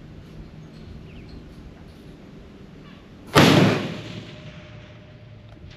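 A single rifle shot from a WWII-era Mauser bolt-action rifle about three seconds in, loud and sudden, fading over about a second.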